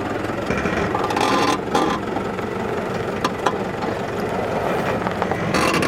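Toyota Land Cruiser engine running at low speed as the 4x4 crawls off-road, with a few sharp knocks and two brief bursts of hiss, about a second in and near the end.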